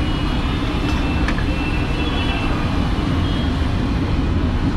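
Steady low rumble with an even hiss above it: samosas deep-frying in a large oil-filled kadai over a gas burner, mixed with street traffic.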